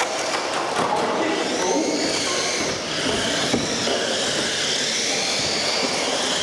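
Several electric 1/10-scale RC touring cars racing on a carpet track. Their motors give overlapping high whines that rise and fall in pitch as the cars speed up and slow for the corners.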